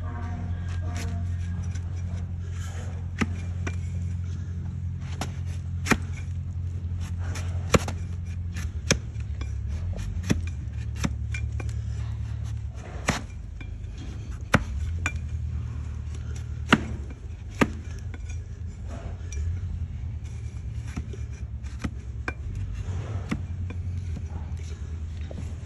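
A broad hoof-trimming blade cutting and paring a donkey's hoof horn on a wooden stand: sharp, irregular cuts every second or two. A steady low hum runs underneath.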